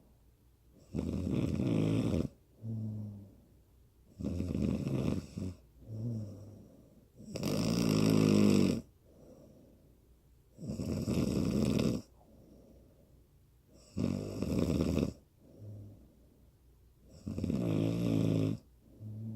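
A woman snoring in sleep: a loud snore about every three seconds, six in all, each followed by a shorter, softer, low-pitched sound on the next breath.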